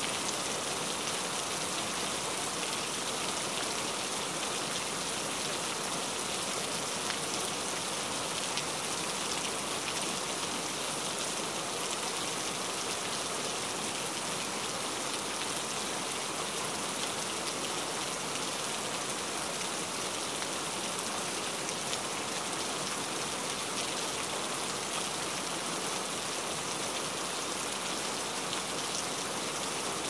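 Steady rain falling on trees, foliage and ground: an even, unbroken hiss that holds the same level throughout.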